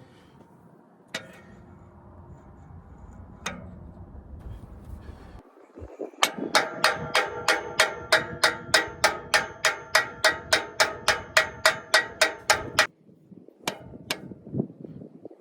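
A hammer beating on ringing metal: a few single knocks, then a steady run of about two dozen blows, roughly three to four a second, for about seven seconds before it stops. Each blow rings with a metallic tone.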